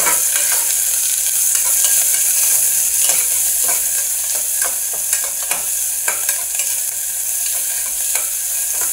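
Sliced onions sizzling in hot oil and ghee in a pressure cooker, stirred with a steel ladle that scrapes and clicks against the pot now and then.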